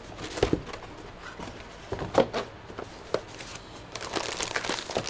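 Cardboard graphics-card packaging being handled by hand: an inner box is slid out and set down with light knocks and scrapes, followed by a stretch of rustling near the end.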